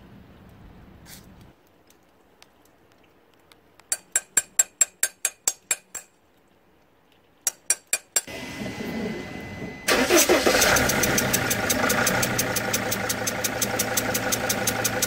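Two quick runs of sharp clicks, then a rising hum, then about ten seconds in the Sprinter's five-cylinder diesel engine starts and runs steadily.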